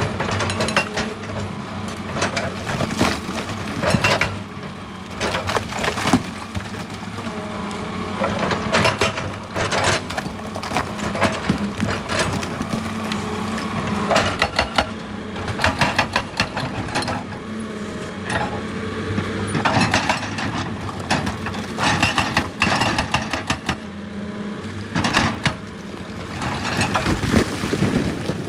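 Excavator's diesel engine running steadily, with repeated knocks and clattering of rock being moved by the machine.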